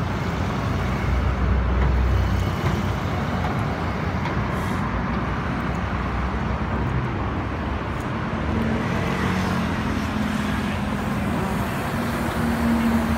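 Steady road traffic from cars and a bus running close by: a constant rumble, with a bus engine's low hum growing stronger near the end.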